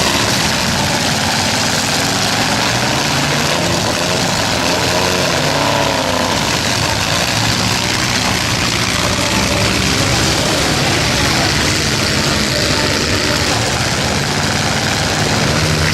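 Demolition derby pickup truck engines running loud and revving, the pitch rising and falling around five seconds in.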